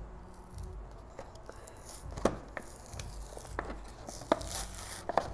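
A cardboard and plastic action-figure box being opened by hand: scattered clicks and knocks as the box is handled and its flap pried, with short rustles and tearing of the packaging from about halfway through.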